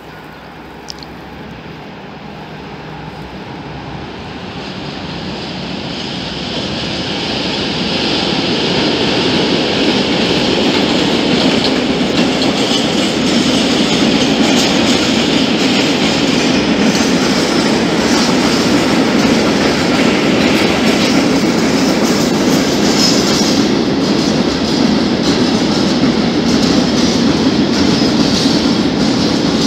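Freight train hauled by a Siemens Vectron electric locomotive, with a long rake of open coal wagons, approaching and growing steadily louder over the first several seconds, then passing close by with a steady rumble of wheels on rail.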